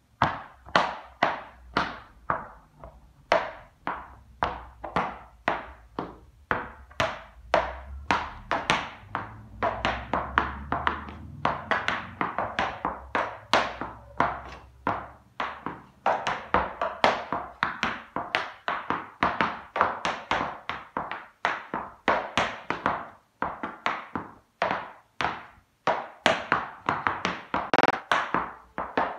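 Tap dancing in patent-leather tap shoes: the metal taps strike a hard floor in a running series of sharp clicks that start suddenly, about two a second at first, then come quicker and denser in clusters from about the middle on.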